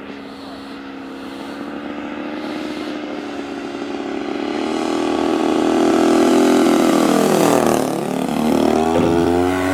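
Engine and propeller of an Aeroworks Extra 260 radio-controlled aerobatic plane making a pass overhead. The engine note grows steadily louder as the plane approaches, then its pitch swoops down sharply about eight seconds in as it passes and flies away.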